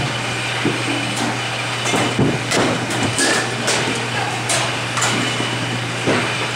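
Batting-cage practice: a bat cracking against a softball, with more irregular knocks and rattles of balls and the cage's wire mesh, over a steady low hum.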